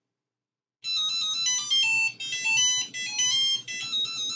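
Neptune Apex aquarium controller alarm sound previewed: a ringtone-style electronic melody, a quick run of stepped beeping notes from a song. It starts about a second in, after silence.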